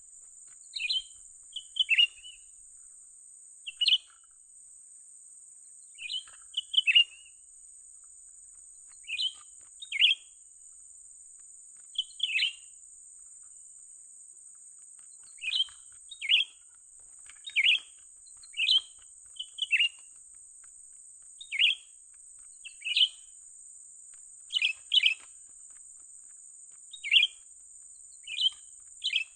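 Cucak ranting bird calling: short, sharp chirps, singly or in quick pairs, about every one to two seconds, with a faint steady high whine underneath.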